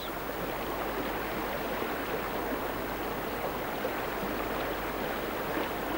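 Steady rushing of river water flowing fast over a shallow riffle.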